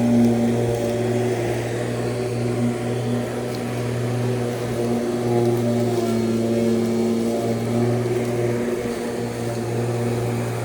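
Lawn mower engine running steadily while mowing grass, its pitch wavering slightly as the load changes.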